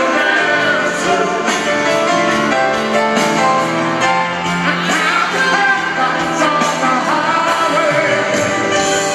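Live band playing a song with a lead vocalist singing over it, heard from the audience at a stadium concert.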